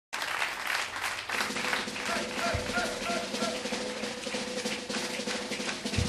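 Live band music with busy, rolling drums over a held note, and a deep bass thump about two and a half seconds in and again near the end.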